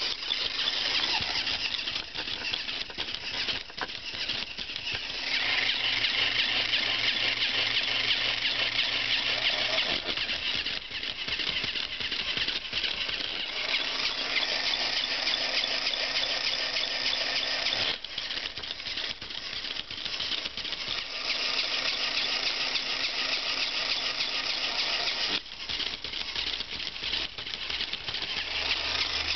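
Battery-operated Crazy Chicken toy's small electric motor and gears running, a steady high-pitched whirring grind as its wings flap and feet move, with a brief break twice. No chirp is heard, though the toy is supposed to chirp.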